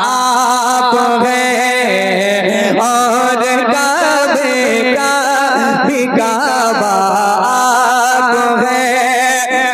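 A man singing a naat into a microphone, drawing out long held notes with wavering, ornamented turns of pitch.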